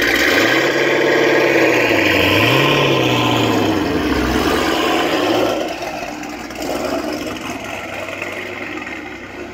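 Twin-turbo LS3 V8 of a fifth-generation Camaro, cammed and breathing through a Corsa cat-back exhaust, running near idle; its pitch rises and falls twice in light swells. It turns quieter a little over halfway through.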